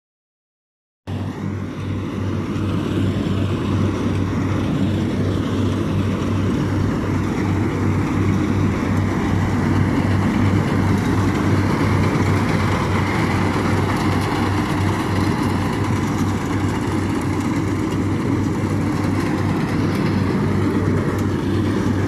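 Rice combine harvester running steadily as it cuts and threshes lodged rice, a continuous engine drone with an even low throb, starting abruptly about a second in.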